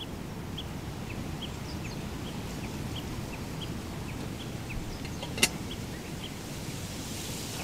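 Outdoor ambience: a steady low rumble of wind. Over it a short, high chirp repeats two or three times a second, and there is one sharp click about five seconds in.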